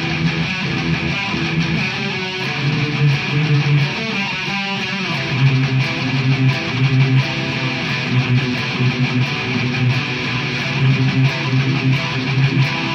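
Two electric guitars playing the rhythm guitar parts of a song through amplifiers, with no drums or vocals, low notes repeating in a steady rhythmic pattern.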